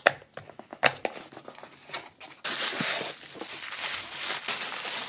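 Sharp clicks and scrapes of a small cardboard box being handled and opened, then, about halfway through, a sudden switch to a steady crinkling of plastic bubble wrap being pulled off the lens.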